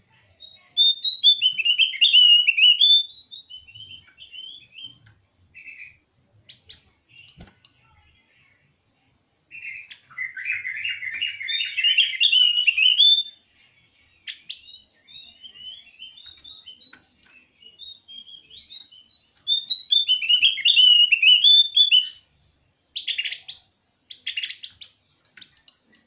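Javan opior (Javan grey-throated white-eye) singing its challenge call, used to provoke rival opiors into singing. It comes in three bursts of rapid, high twittering with scattered single notes between, and a few sharp chirps near the end.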